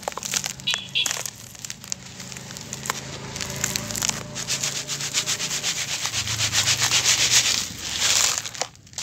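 Dry dirt crumbled by hand and sifted through a plastic basket: a dense patter of grit and dust falling into the bowl, growing louder about halfway through, with a brief louder hiss near the end.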